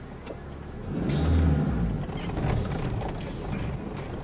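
Aftermarket train-style air horn on a Honda Civic sounding a deep, low blast that starts about a second in and then tails off.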